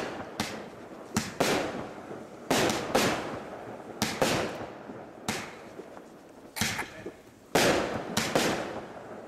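A TROPIC TB147 25-shot fireworks battery (cake) firing shot after shot: a string of sharp bangs coming about one every half-second to second, each with a short decaying tail.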